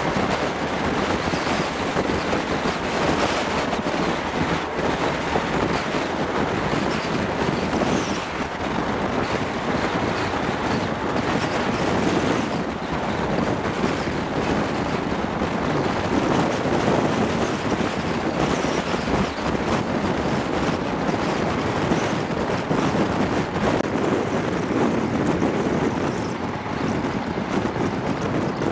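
Wind buffeting the microphone held out of a train window, over the steady rush and rumble of the passenger train running at speed along the track.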